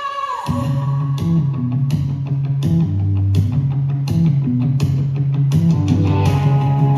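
Loud show music: a held sung note glides down and stops in the first half second, then an up-tempo rock track with a repeating bass line and a steady drum beat starts.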